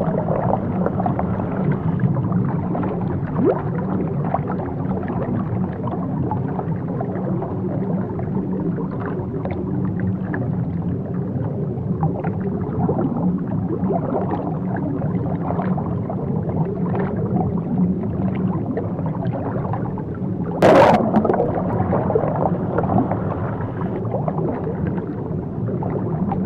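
Muffled underwater churning and bubbling of sea water, heard as if from below the surface, with a low rumble and faint crackle throughout. About 21 seconds in comes a brief, louder and brighter burst.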